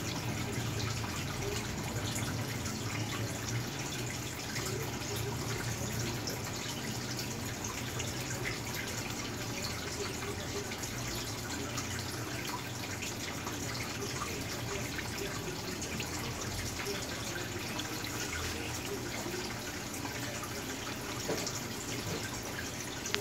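Air-driven sponge filter bubbling steadily in a small tub pond, with a continuous trickle and splash of water at the surface.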